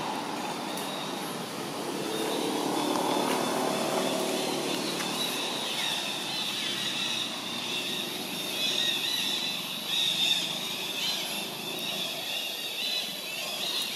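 Outdoor ambience: a motor vehicle's hum fades away over the first few seconds, while a steady high-pitched chirping sets in and carries on, with wavering chirps in the second half.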